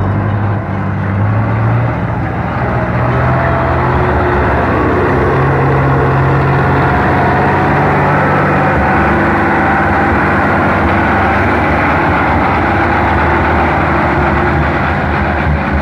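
Belarus 510 tractor's diesel engine running steadily while pulling a trolley loaded with sand; the engine note picks up slightly about a second in, then holds.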